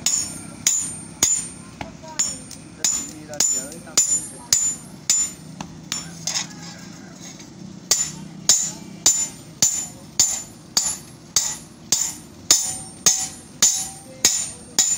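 Hammer striking metal in a steady rhythm, about two ringing blows a second, with a short pause midway.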